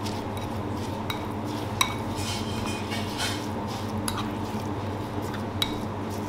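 Kitchen utensils clinking against dishes: a few sharp knocks and a stretch of scraping, over a steady low hum.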